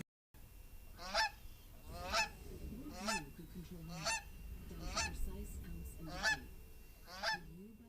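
Goose honking repeatedly, seven loud calls about one a second, with lower wavering calls underneath.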